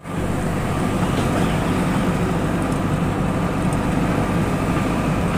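JCB backhoe loader's diesel engine running steadily while the machine drives along a dirt road, heard from inside the cab.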